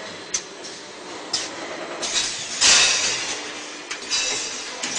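Automatic milk powder can filling and seaming line running: a steady mechanical clatter with sharp metallic clicks and repeated bursts of hissing, the loudest just past the middle.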